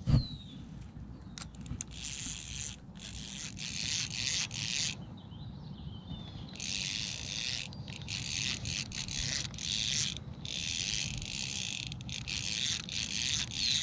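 Spinning reel cranked in bouts of about a second with short pauses between, reeling in line with a high whirring rattle. A single thump comes right at the start.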